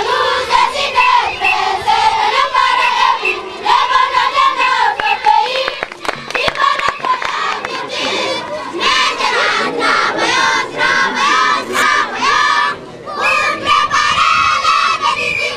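A large group of schoolchildren singing a marching chant loudly together, in repeated phrases with short breaks, and a few sharp clicks a little before the middle.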